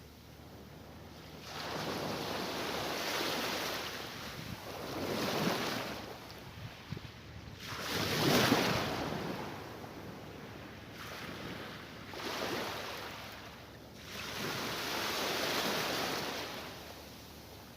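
Mediterranean Sea waves breaking and washing in, in repeated swells every three to four seconds, the loudest about halfway through.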